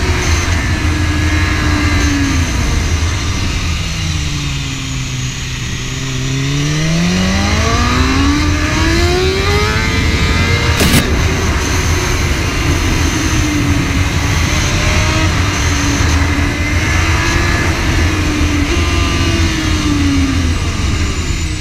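BMW S1000RR sport bike's inline-four engine under way, heard from the rider's seat. Its pitch falls for the first five seconds or so, then climbs steeply and wavers up and down with the throttle over a steady low rumble. A single sharp click comes about eleven seconds in.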